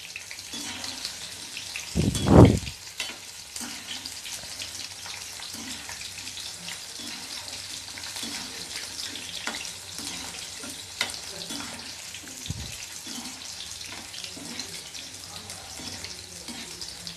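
Battered soya chunks deep-frying in hot oil in a kadai: a steady sizzle with fine crackling throughout as they are turned with a metal spoon. A single dull thump about two seconds in is the loudest sound.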